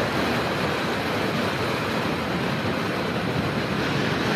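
Steady wind rush and road noise of a BMW R1250R Sport naked motorcycle cruising at just over 70 mph in sixth gear, with wind buffeting the rider's microphone and no engine note standing out.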